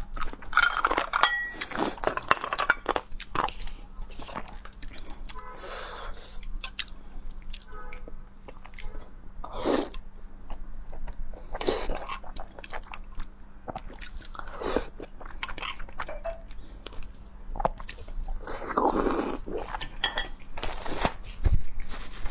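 A person chewing and crunching food close to a clip-on collar microphone, with irregular bites and wet mouth sounds.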